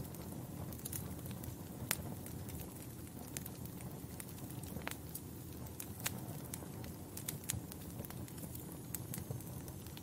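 Log fire crackling in a fireplace: a steady low rumble of flames with sharp pops and snaps at irregular intervals.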